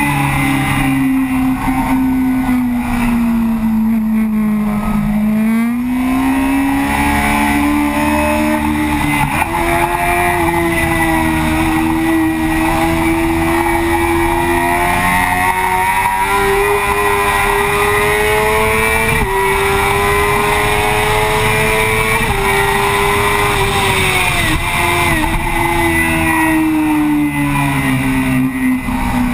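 Yamaha FZ6's inline-four engine heard from on board, running at high revs on track. Its pitch falls, then climbs, and jumps in sudden steps as the rider changes gear.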